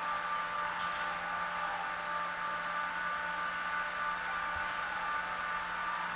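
Steady electrical hum and hiss from Kaohsiung MRT trains standing at a platform with their doors open, with a few steady whining tones and no train movement.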